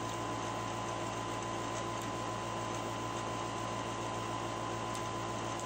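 Steady background hum and hiss with a few constant tones, unchanging throughout; no distinct chewing or utensil sounds stand out.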